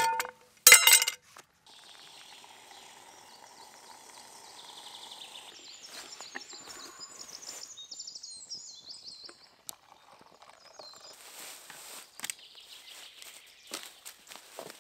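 A short, loud clatter about a second in, then quiet outdoor ambience. About halfway through, a small bird chirps a quick run of calls, and scattered light knocks and rustles follow.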